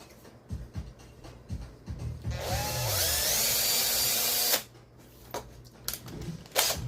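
Power drill boring out a rivet on a diecast toy car. It runs for about two seconds with its pitch rising as it spins up, then stops abruptly, with light clicks of handling before and after.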